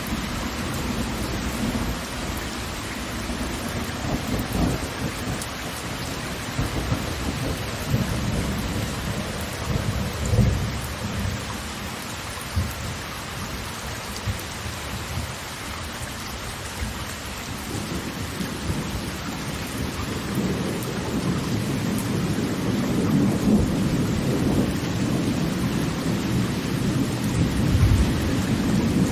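Steady rushing of falling water with deep rumbles that swell and fade several times, heaviest in the second half.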